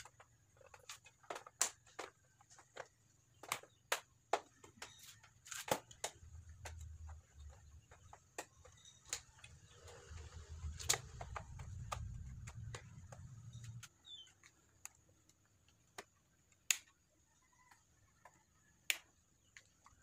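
Irregular sharp clicks and taps of a plastic motorcycle body panel being handled and pressed onto the frame, over a low rumble that cuts off about fourteen seconds in.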